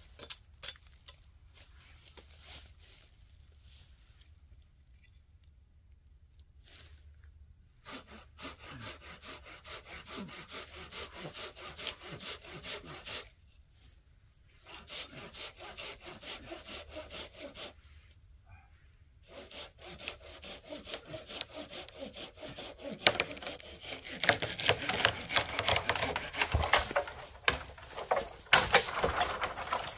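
Hand saw cutting into a tree trunk near its base: rhythmic back-and-forth strokes that start about eight seconds in, pause twice briefly, and grow louder over the last several seconds.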